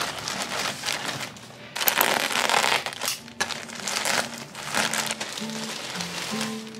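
Plastic courier mailer and bubble wrap crinkling as a parcel is handled and opened. Soft background music comes in about halfway.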